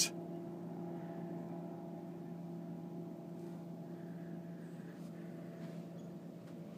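Bass boat outboard motor droning steadily at a constant pitch.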